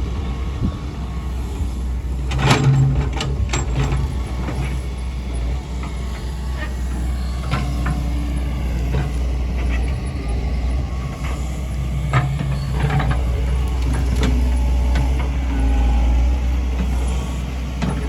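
Doosan DX140W wheeled excavator's diesel engine running steadily under load. Several sharp clanks and knocks sound over it from the working bucket and arm, the loudest about two and a half seconds in and again around twelve seconds in.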